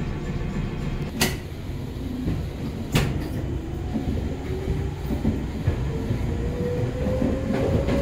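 Running sound inside a Joshin Line electric train car: a steady low rumble with two sharp clacks, about one and three seconds in. From about halfway, a thin motor whine rises steadily in pitch as the train picks up speed.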